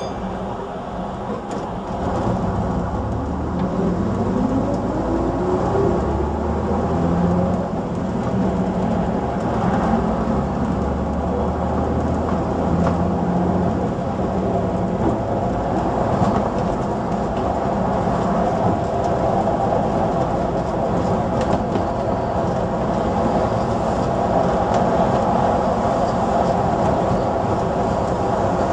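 AEC Regent III RT double-decker bus's 9.6-litre diesel engine running as the bus drives along, heard from the upper deck, with a whine that rises in pitch a few seconds in. Wind noise buffets the microphone through the open front window.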